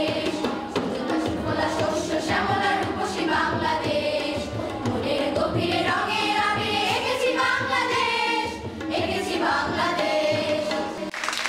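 Children's choir singing a Bengali song in unison over a rhythmic drum backing. Near the end the singing stops and clapping breaks out.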